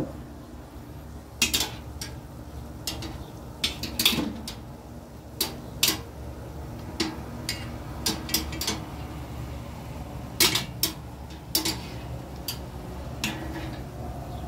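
Metal tongs clinking and tapping against a grill grate and cast-iron pan as tortillas are turned: an irregular string of short, sharp clicks over a low steady hum.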